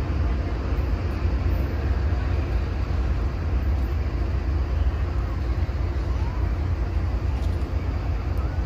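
Low, steady diesel rumble of a Metrolink train's locomotive pulling out some way down the track.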